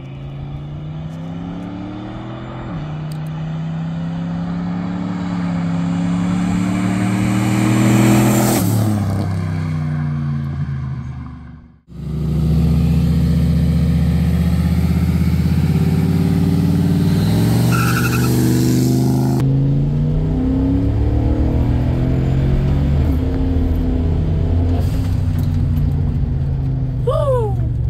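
Turbocharged 5.3-litre V8 of a 2007 Chevrolet Avalanche accelerating past. The engine note climbs through a gear change, is loudest about eight seconds in, and falls in pitch as the truck goes by. After a sudden cut the engine runs loudly again at high revs, and after a second cut it is heard pulling steadily.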